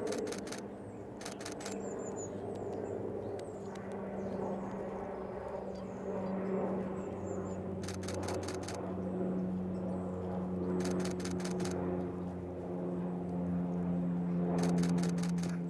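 A camera shutter firing in quick bursts of four or five frames, five times, over a steady low engine drone, with faint bird chirps. The sound cuts off suddenly at the end.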